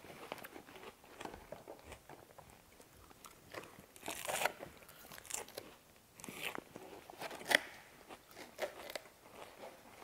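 Close-up eating of a lettuce salad: scattered crunchy bites and chewing, a few short crunches a second or so apart.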